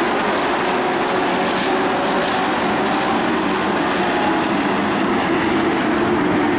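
Race truck engines running hard as several trucks lap a dirt oval, making a loud, steady engine drone with no letup.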